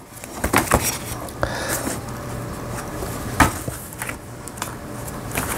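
A few scattered light clicks and knocks at irregular intervals, the sharpest about three and a half seconds in, over a steady low hum.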